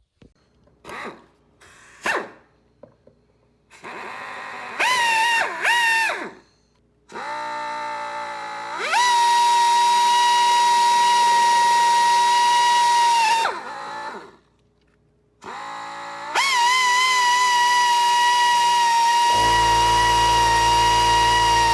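Electric drill boring pilot holes through a car's sheet-metal firewall: a couple of short trigger bursts, then two long runs that each spin up to a steady high whine and wind back down. A lower rumble joins the whine near the end of the second run.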